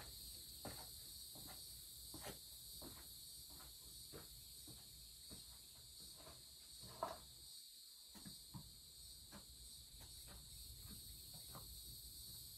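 Steady high-pitched chorus of summer insects in several pitches, with faint regular footsteps on rock underneath.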